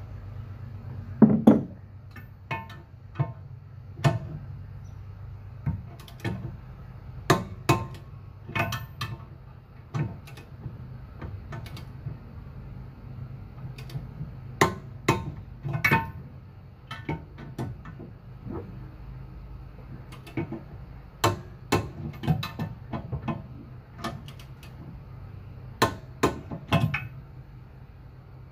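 Sharp metallic clicks and knocks at irregular intervals from a ratchet and torque wrench tightening the steel bolts on a fifth-wheel hitch's legs, over a steady low hum.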